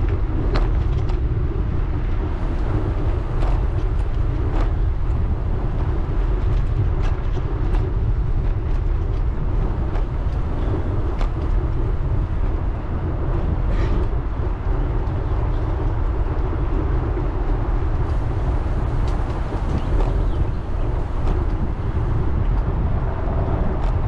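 Wind rushing over the microphone while riding a bicycle, with the steady rumble of the tyres rolling across the bridge deck and scattered sharp clicks.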